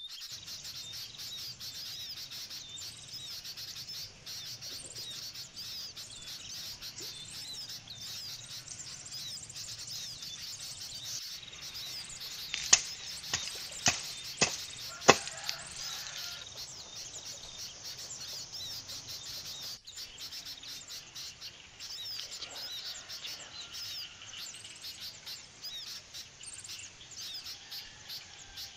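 Birds chirping and insects calling steadily, with five sharp chops near the middle from a knife cutting a thin bamboo stalk.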